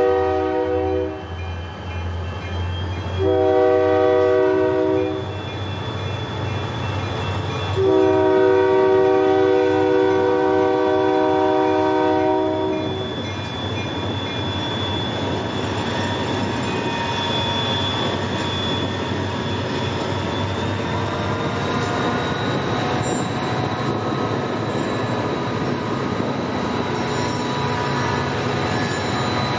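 A pair of EMD SD40-2 diesel locomotives sounds a multi-chime air horn for a grade crossing: a blast ending about a second in, a short blast, then a long blast of about five seconds. The locomotives then pass close by, their 16-cylinder two-stroke diesels running under load over the rumble of wheels on rail, with a steady high whine.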